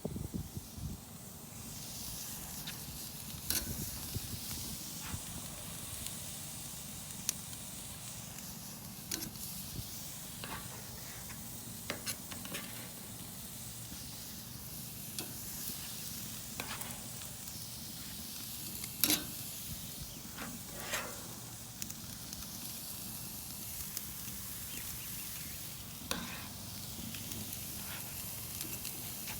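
Small steaks sizzling on a hot charcoal grill: a steady hiss with scattered sharp pops and crackles, the loudest pop about 19 seconds in.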